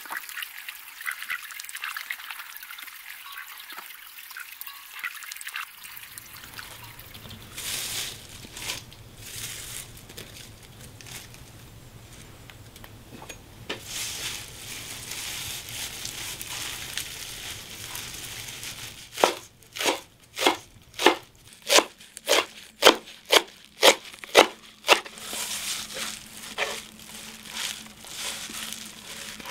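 Ducks dabbling and splashing in a shallow muddy pool. Then fresh greens rustle as hands work them in a terracotta bowl. About two-thirds of the way in, a broad knife chops them against the clay bowl: about a dozen sharp strikes, roughly two a second.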